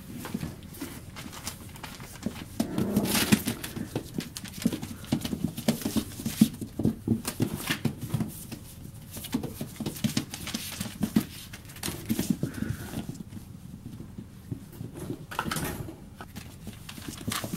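Nearly four-week-old border collie puppies scampering and scuffling in their pen: irregular patter and taps of small paws and claws on towels and newspaper, with a denser flurry about three seconds in.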